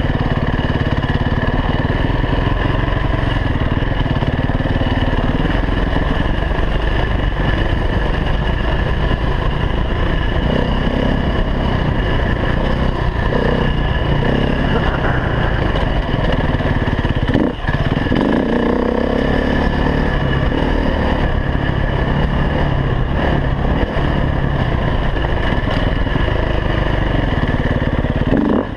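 KTM 350 EXC single-cylinder four-stroke enduro motorcycle engine running continuously, its revs rising and falling with the throttle, with a brief drop about two-thirds of the way through.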